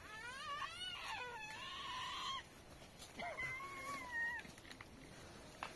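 A domestic animal giving two drawn-out, wavering high-pitched whining calls: a long one of about two and a half seconds, then a shorter one about a second later.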